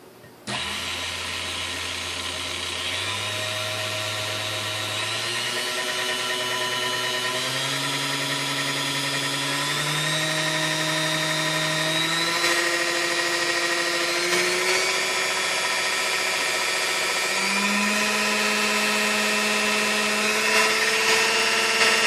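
Restored Sunbeam Mixmaster Model 9 stand mixer's motor switched on about half a second in and stepped up through its speed settings, its steady hum rising in pitch in distinct stages. It runs smoothly at every speed.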